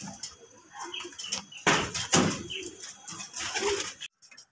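Domestic pigeons cooing in a loft, with loud flurries of wing flapping about two seconds in and again near the end; the sound cuts off suddenly just after four seconds.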